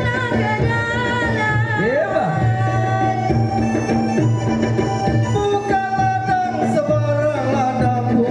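Live bermukun dance music: a keyboard and a voice carry a melody of long, bending notes over a steady bass, with the gendang frame drums beating a regular rhythm.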